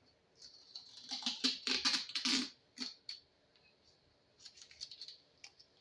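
Handling noise: quick rustles and light clicks and taps in two short clusters, the first longer and louder, as objects are moved about by hand.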